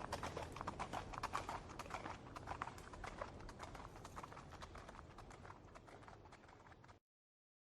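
Horse hooves clip-clopping, fading away to silence about two-thirds of the way through.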